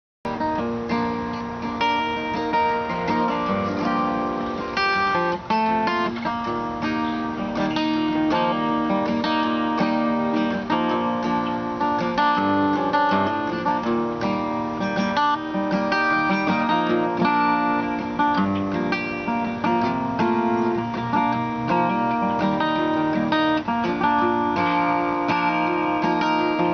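Acoustic guitar being strummed in a steady rhythm, an instrumental passage with no singing; it cuts in suddenly out of silence at the start.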